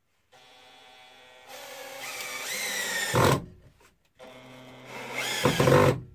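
Cordless drill driving screws through a metal bracket into wood: two runs of the drill motor, the first about three seconds and the second about two, each growing louder and ending in a short loud burst as the screw goes home.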